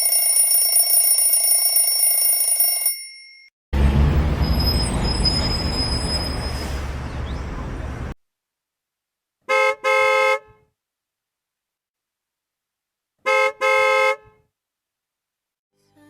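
A run of separate sound-effect clips with silent gaps between them: a steady high ringing tone for about three seconds, then about four seconds of noisy rumble, then a car horn beeping twice, and twice again a few seconds later.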